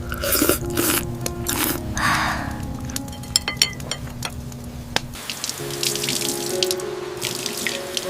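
Water running and splashing in a kitchen sink in short bursts, with a few small clicks and a sharp knock about five seconds in. Soft background music plays underneath.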